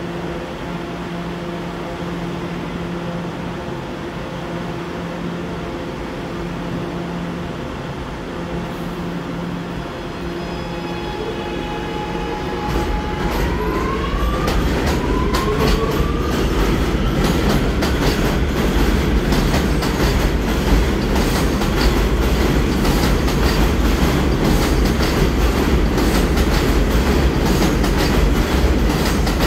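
A New York City subway train stands humming with a pulsing low drone, then pulls away about twelve seconds in. Its motor whine rises in pitch twice as it speeds up, under a growing, louder rumble and wheel clatter over the rail joints.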